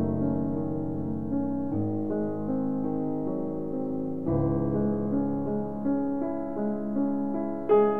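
Background piano music: held chords that change every two to three seconds.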